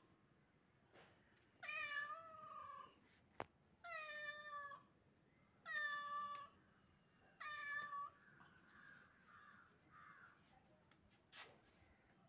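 A cat meowing four times, each meow about a second long, spaced roughly two seconds apart.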